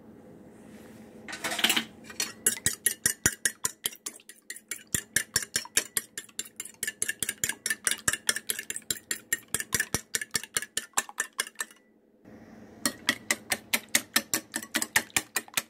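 A fork beating egg whites and beet juice in a bowl, its metal tines clicking against the bowl about four to five times a second. The beating pauses briefly about twelve seconds in, then starts again.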